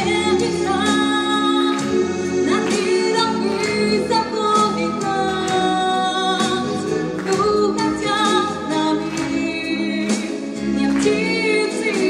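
A woman singing into a handheld microphone over instrumental accompaniment, holding long notes that waver slightly in pitch.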